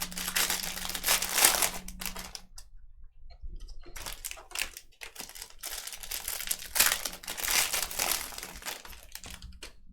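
Crinkling and rustling of card-pack packaging as it is torn open and the cards are pulled out, in irregular bursts with short pauses.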